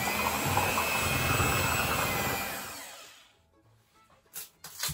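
Electric hand mixer beating milk and instant pudding mix in a glass bowl, its motor whirring steadily, then switched off about two and a half seconds in and winding down. A couple of light knocks near the end.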